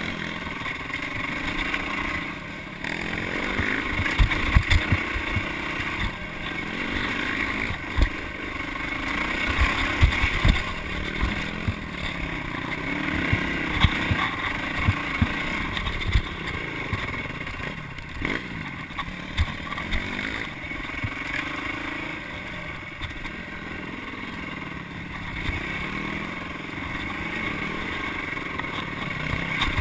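Yamaha dirt bike engine running and revving up and down while ridden over rough ground, its pitch rising and falling repeatedly, with frequent low thumps from the bumps.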